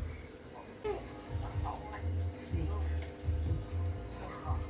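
Steady high-pitched chirring of an insect chorus, with irregular low thumps underneath.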